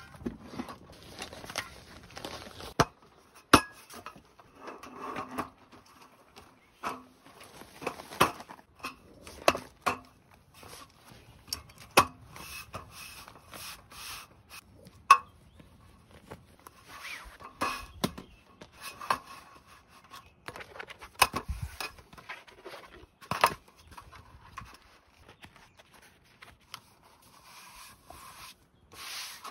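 Objects being handled: irregular sharp knocks and clicks with rustling in between, like gear or dishes being set down and moved.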